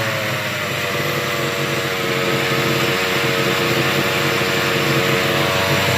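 Rovan Baja 45cc's two-stroke petrol engine idling steadily, holding an even pitch.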